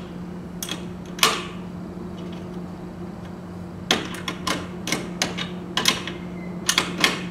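Sharp metallic clicks and clinks of a half-inch wrench working the steel jacking nuts on the threaded rods under a deck leg: two early on, then a quick irregular run of a dozen or so in the second half, over a steady low hum.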